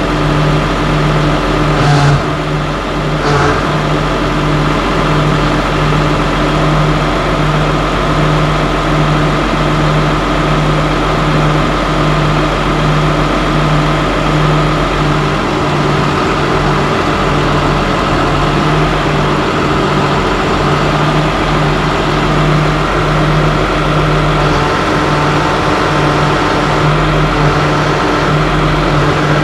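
Diesel tractor engine idling steadily on its first run after an engine oil and transmission filter change, while oil and hydraulic pressure build. Two sharp clicks sound about two and three seconds in.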